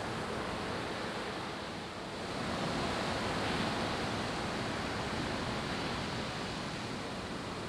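Ocean surf: the steady rush of breaking waves and whitewater, swelling a little a few seconds in.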